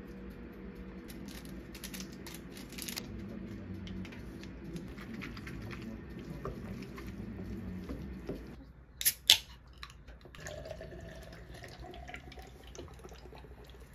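Buckwheat noodles being tossed with a wet sauce-and-vegetable topping using chopsticks in a ceramic bowl: soft wet squishing and light irregular clicks over a steady low hum. The mixing stops past halfway, followed by two sharp clicks.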